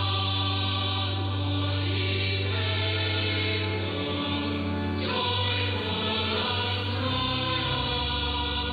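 Church choir singing with organ over a held low bass note, heard as an AM longwave broadcast through a radio receiver, so the sound is cut off above about 5 kHz.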